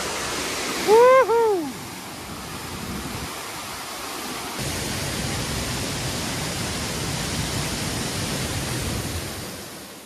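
Waterfall carrying heavy flow after days of rain, rushing steadily. About a second in, a loud two-note call sounds over it, each short note rising and then falling. The rush fades out near the end.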